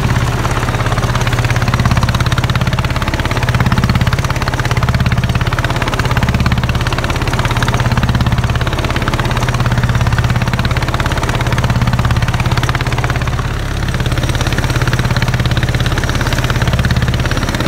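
Small fishing boat's engine running steadily at speed, a low drone that swells slightly every second or so, with water rushing past the hull.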